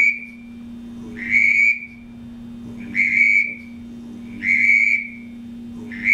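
Shotgun-shell duck whistle blown as a mallard drake call: a string of short hooted whistle notes about one and a half seconds apart, each cut off with a little trailing whistle. A steady faint low hum runs underneath.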